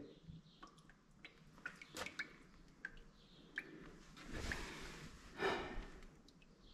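Faint, scattered light clicks and taps of parts being handled, with two soft breaths about four and a half and five and a half seconds in.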